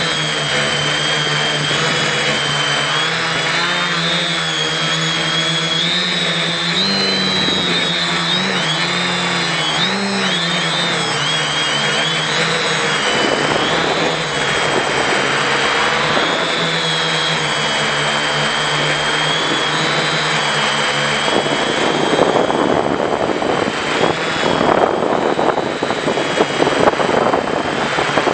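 Quadcopter's four electric motors and balanced APC 11x4.7 propellers droning and whining close to the onboard microphone, the pitch wavering up and down as the throttle changes. In the last few seconds the sound turns rougher and gustier.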